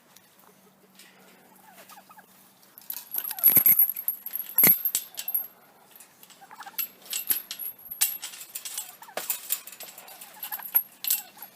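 Turkey gobblers gobbling, several rattling gobbles in quick succession starting about three seconds in.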